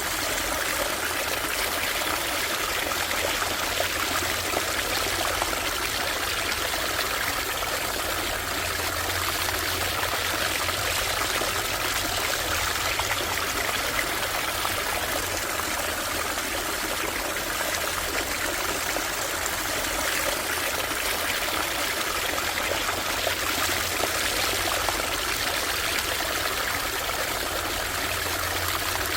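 Small stream flowing over stones: a steady, even babble and trickle of running water.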